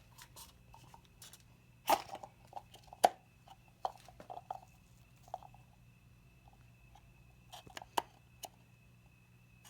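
Scattered light clicks, taps and scrapes of a new oil filter and its housing cap being handled and threaded on by hand, two sharper knocks about 2 and 3 seconds in and a pair near the end, over a faint steady hum.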